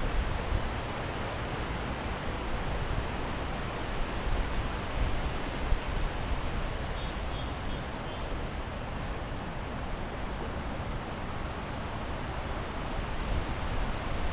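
Wind blowing outdoors and buffeting the microphone: a steady rushing noise with a low rumble. A few faint high chirps sound about halfway through.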